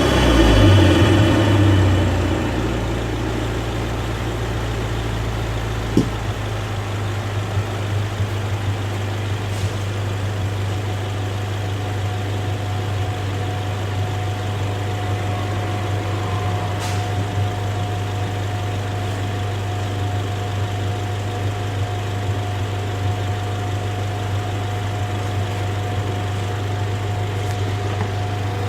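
2015 Ford Mustang EcoBoost's turbocharged 2.3-litre four-cylinder, fitted with a Roush cold air intake, dropping back from a rev and then idling steadily, with one brief click about six seconds in.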